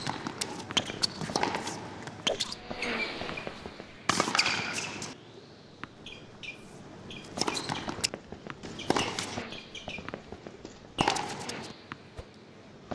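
A tennis rally: racket strikes on the ball and ball bounces, with quick footsteps on the court between them. There are sharp hits throughout, and louder strikes about four, seven and a half, nine and eleven seconds in.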